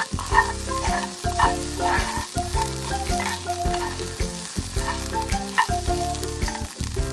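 Fried rice sizzling in a pan while a spatula repeatedly scrapes and turns it, over background music.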